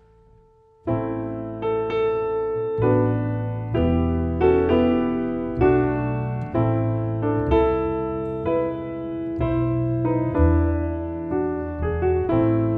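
Grand piano and double bass playing a slow tune together, starting about a second in after a near-silent pause. The bass plucks low notes under the piano's chords.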